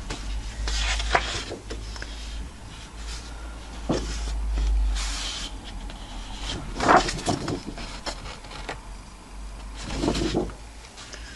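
Sheets of lightly textured patterned cardstock being lifted, slid across a wooden tabletop and flipped over, making several separate rustles and scrapes of paper, with low handling bumps underneath.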